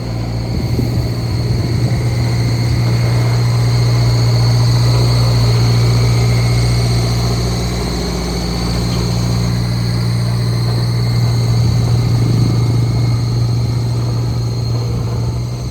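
Heavy diesel engine of construction machinery running steadily with a deep hum, swelling slightly in level now and then.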